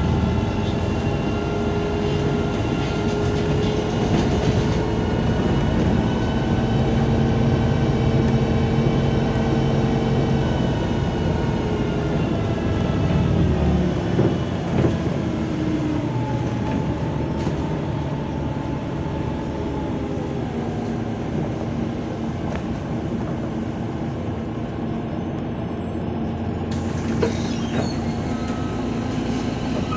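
MAZ 203 city bus's engine and drivetrain heard from inside the passenger cabin while under way: a steady whine made of several tones over a low rumble. Its pitch drops about 13 to 16 seconds in and then runs on lower, with a couple of light knocks as it drops.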